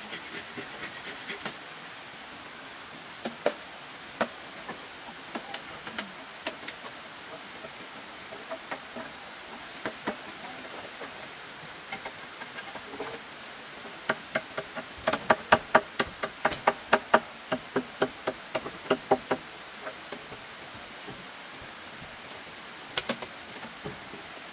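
Sharp knocks, scattered at first, then a quick run of about three to four strikes a second for several seconds past the middle, and one more strike near the end.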